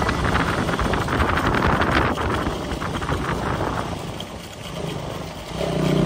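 Motorcycle riding along with wind rushing over the microphone and the engine running under it. Near the end, a steadier engine hum comes in.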